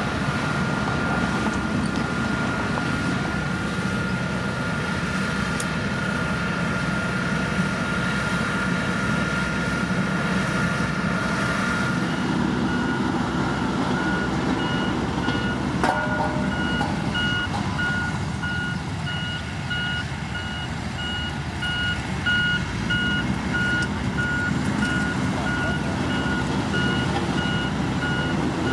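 Heavy diesel engine of a motor grader running steadily, with a steady high tone in the first half; from about halfway a reversing alarm beeps about twice a second, signalling the machine backing up.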